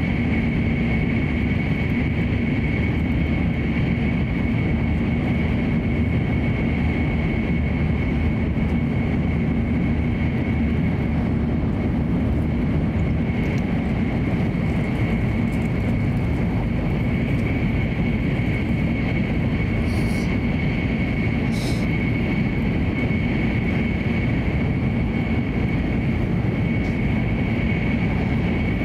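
Running noise inside an E7/W7-series Hokuriku Shinkansen car at speed: a steady rumble with a constant high whine over it. Two brief faint high ticks about two-thirds of the way in.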